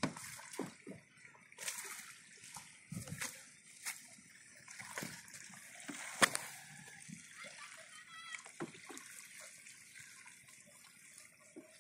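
Water splashing and dripping as a fine-mesh fishing net is hauled up out of shallow canal water by hand, in irregular splashes, with a sharp knock about six seconds in.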